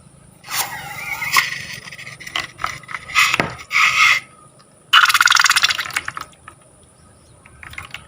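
Slime being squeezed and worked by hand, giving irregular wet squishing and crackling with clicks and pops. A louder dense crackling burst lasts about a second, a little past the middle.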